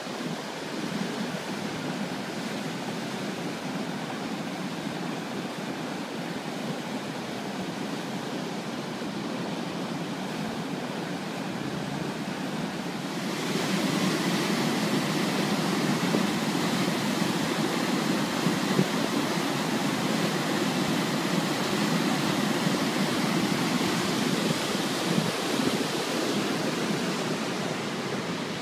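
Flooded Otava river rushing through rapids and over a weir: a steady noise of fast water. It gets louder about halfway through.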